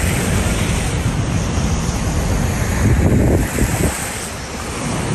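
Wind buffeting the phone's microphone: a continuous rushing rumble with no speech, easing a little near the end.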